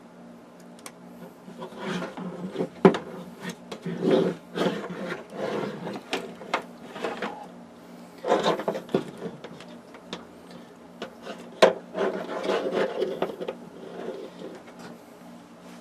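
Hands handling wiring and a plastic switch box: irregular rubbing and scraping with several sharp clicks, the loudest about three seconds in and again near twelve seconds, as the power and ground wires are hooked up.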